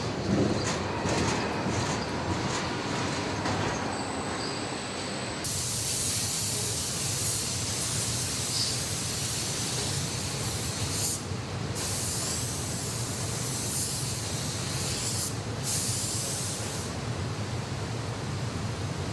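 Assembly hall noise: a steady low rumble and hiss with a few light clicks at first, then a brighter high hiss that cuts in about five seconds in and drops out briefly twice.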